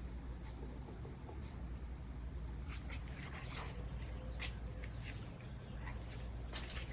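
Steady high hiss over a low hum, with scattered faint clicks and taps from about three seconds in.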